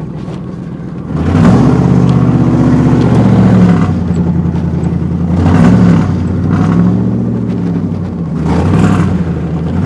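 1999 Ford F-150's engine, heard from inside the cab, running low for a moment and then pulling harder about a second in. Its revs rise and fall several times as the truck drives.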